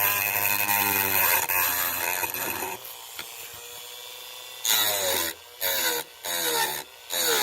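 Small handheld rotary tool grinding around the rivets of a die-cast toy car's base. It runs steadily for nearly three seconds, then in four short bursts of grinding after a quieter pause.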